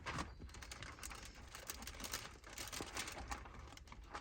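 Faint crinkling and light irregular ticking of window tint film being handled and stuck onto windshield glass.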